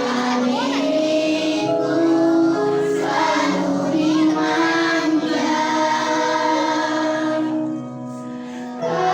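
Group of children singing together over accompanying music, in held notes, quieter for a moment near the end.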